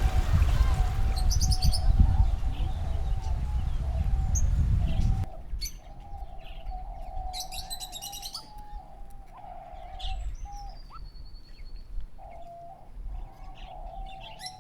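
Birds calling: a low cooing note held almost without a break, with higher chirps, trills and a falling whistle over it. A low rumbling noise runs under the first five seconds and stops suddenly.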